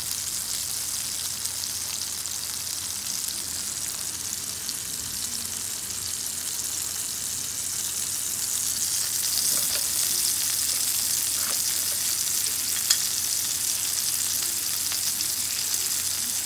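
Sendai beef steak and sliced garlic sizzling in hot fat on a BRUNO compact electric hot plate: a steady high-pitched frying hiss that grows a little louder partway through, with one sharp pop of spattering fat near the end.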